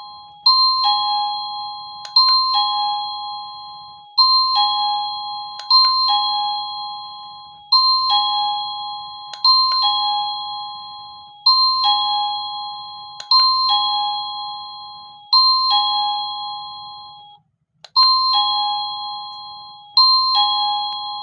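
CACAZI A20 wireless doorbell chiming a two-note ding-dong, a higher note then a lower one, about eleven times in a row, one roughly every two seconds. Each chime opens with a sharp click and rings out as it fades.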